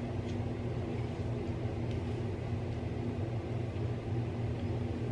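A steady low hum over a faint hiss, unchanging throughout.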